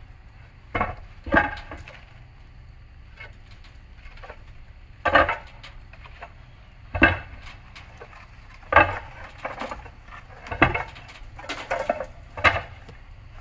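Concrete barrel roof tiles clacking and clinking against each other as they are lifted off a pallet and set down on the roof: sharp, irregular knocks every second or two.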